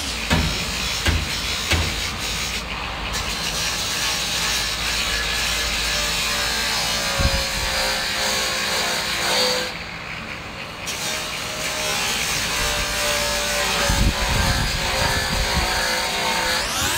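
Handheld angle grinder grinding the steel rear quarter panel of a car body, a steady high motor whine with gritty scraping of disc on metal. About ten seconds in the pitch sags and the sound drops for a moment, then picks up again.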